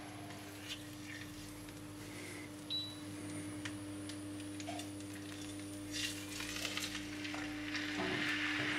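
A raw wild boar leg is handled and set down into a roasting pan of hot oil: a few soft knocks and handling noises, then the oil begins to sizzle under the meat near the end as searing starts.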